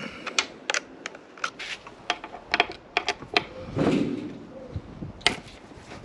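Irregular sharp clicks and small knocks of hand tools and parts being handled on a motorcycle while its battery is disconnected, with a brief rustle about four seconds in and a louder click just after five seconds.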